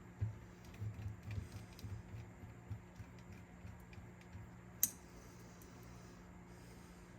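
Small handling noises from work on a cassette deck's tape transport: soft irregular knocks and light clicks of parts and wiring being handled, with one sharp click about five seconds in.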